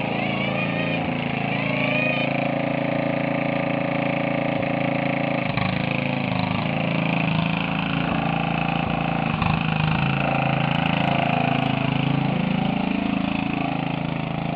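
Riding lawn mower engine running steadily while the mower is driven.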